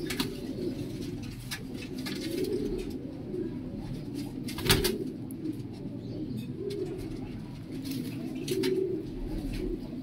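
Domestic pigeons cooing again and again, low and swelling, with scattered clicks and rustles from a pigeon being handled; a sharp knock about halfway through is the loudest sound.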